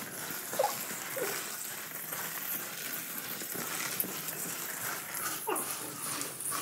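Dry vermicelli crackling and rustling as hands break and crumble the strands in a steel bowl, a steady dry crunching.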